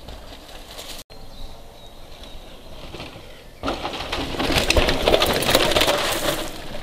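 Mountain bike riding past close by on a dirt forest trail: tyres rolling and crunching over soil and leaf litter. The noise rises sharply a little past halfway as the rider goes by. Faint birdsong is heard before it.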